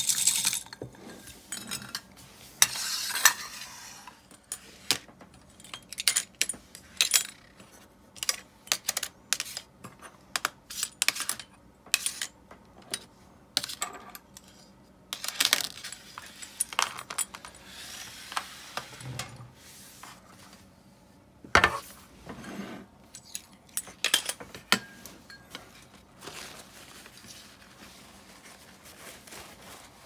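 Small metal parts and tools of an Abu Garcia Ambassadeur 1500C baitcasting reel clicking and clinking against each other and a hard work surface during hand maintenance, in irregular sharp knocks with short gaps. The knocks thin out and grow quieter near the end.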